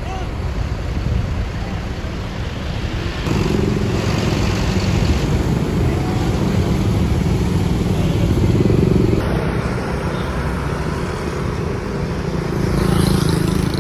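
Road traffic with a steady, heavy engine rumble from passing vehicles, getting louder about three seconds in.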